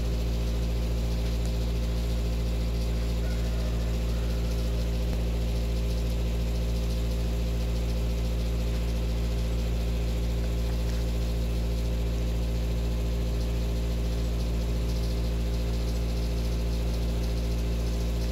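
A steady low mechanical hum made of several steady tones, unchanging throughout.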